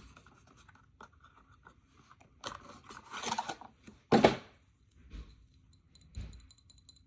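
Hands handling a skincare product's cardboard packaging: rubbing and scraping for about a second, then a sharp knock about four seconds in and two softer thuds after it.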